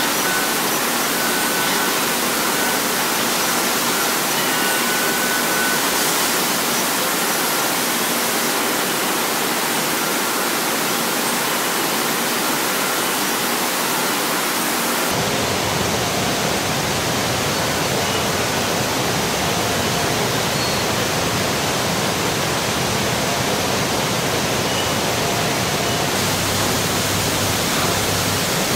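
Steady rushing hiss of a robotic car-body paint spray booth, its air flow and spray guns running without a break. About halfway through the sound shifts and takes on a deeper rumble.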